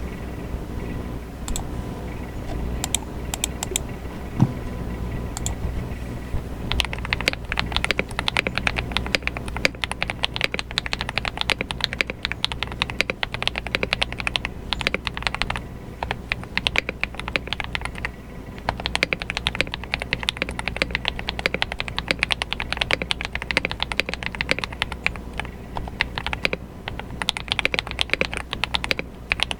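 Typing on a CIY Tester68 mechanical keyboard fitted with Akko CS Vintage White switches on the alpha keys and Akko V3 Cream Yellow switches on the rest. A few scattered keystrokes and one heavier thump come about four seconds in. Fast continuous typing follows from about seven seconds on, broken by short pauses.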